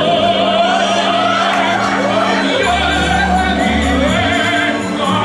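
Recorded song playing back: a singing voice holding long notes with vibrato over sustained accompaniment, with a deep bass coming in about halfway through.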